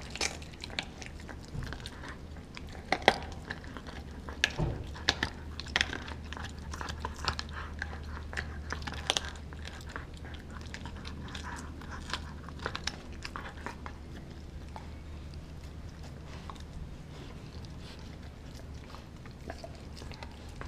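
A pit bull–German shepherd mix gnawing a frozen raw pig's foot with its side teeth: irregular sharp crunches and cracks of teeth on frozen skin and bone, coming thick in the first half and thinning out in the second.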